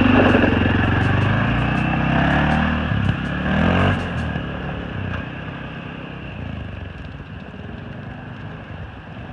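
2015 CFMOTO CFORCE 500 ATV's single-cylinder engine revving up from idle as the quad pulls away, climbing in pitch twice in the first four seconds, then fading as it drives off into the distance.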